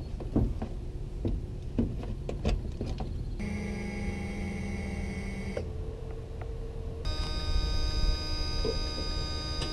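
A few short plastic clicks as the trailer cord's plug is seated. From about three seconds in, a steady electric motor hum and whine from a fifth wheel's LCI electronic leveling system running its jacks; it changes pitch twice and turns higher and denser near the end.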